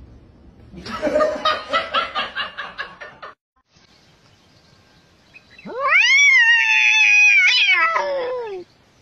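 A cat's long drawn-out yowl, about three seconds long, rising in pitch at the start, held, then sliding down at the end. Earlier comes a separate rapid run of short pulsing sounds lasting about two seconds.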